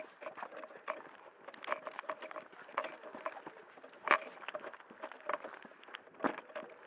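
Footsteps of a player walking over rough ground: irregular crunching steps, with a sharper knock about four seconds in and another near the end.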